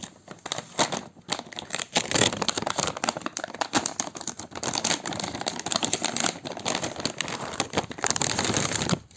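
Plastic packaging around a graphics card crinkling and rustling as it is handled, a dense crackle of many small clicks that stops abruptly just before the end.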